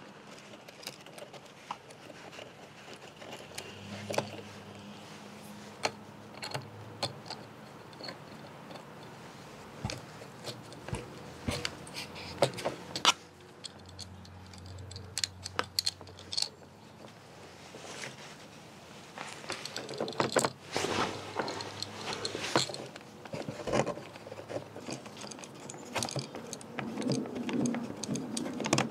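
Irregular small clicks, taps and scrapes of hands handling an inline circuit breaker and its soldered wire ends while fitting them into the screw terminals. The handling is busiest about halfway through and again in the last third.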